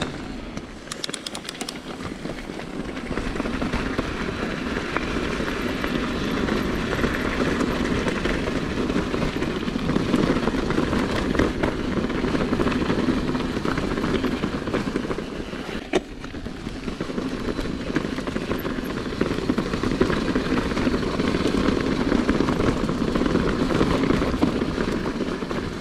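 Mountain bike rolling over a rough, stony trail: continuous crunching tyre noise and crackly rattling of the bike, with a brief lull about two-thirds of the way through.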